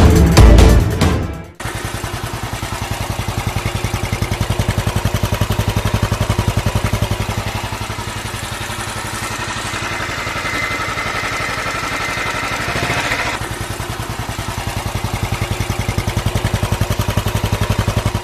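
Motorcycle engine running with an even, rapid pulsing beat as the bike is ridden. Music plays at the start and cuts off abruptly about a second and a half in.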